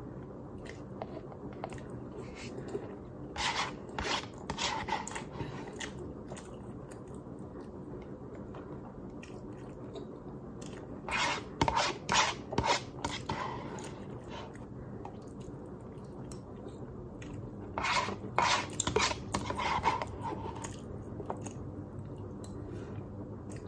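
A person eating spaghetti carbonara from a paper cup: three short clusters of chewing and mouth sounds, mixed with the utensil scraping in the cup, over a steady low hum.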